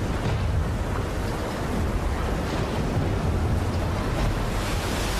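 Heavy storm surf: a deep, steady rumble of breaking waves.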